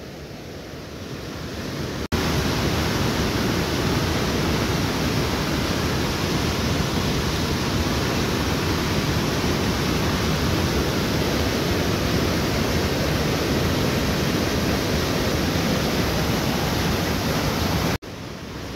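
Flood-swollen, muddy mountain stream rushing over boulders: a steady, dense roar of torrential water. It cuts off abruptly for an instant about two seconds in and again near the end.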